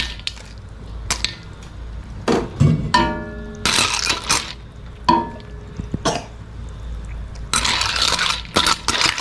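Spatula stirring siput sedut snails in coconut-milk gravy in a wok: shells knocking and clinking against the pan, with scraping and a short ringing metal strike about three seconds in.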